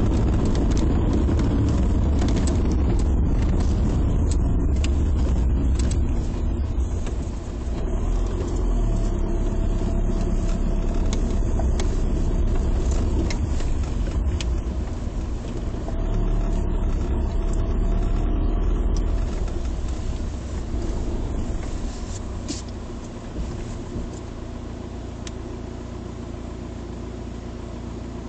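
Volkswagen Passat's engine and tyre noise heard from inside the cabin, a steady low rumble that drops to a quieter level about twenty seconds in as the car eases off.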